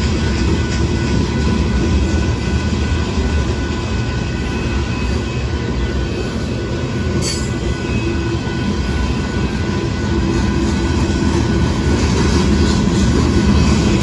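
Freight train of covered hopper cars rolling through a grade crossing: a loud, steady rumble of wheels on rail, with a thin steady high tone running over it.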